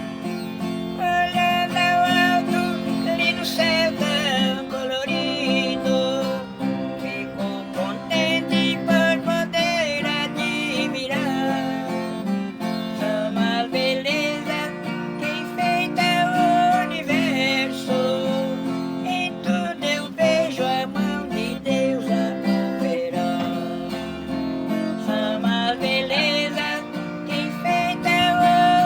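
Instrumental break of a sertanejo raiz gospel song: acoustic guitar strumming steady chords under a wavering melodic lead.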